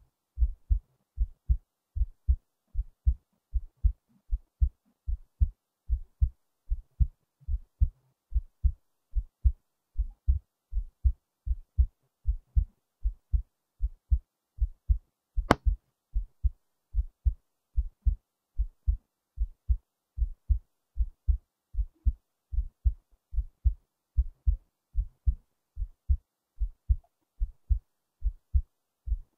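Human heartbeat, steady and regular: paired low thuds, lub-dub, beat after beat. About halfway through there is a single sharp click.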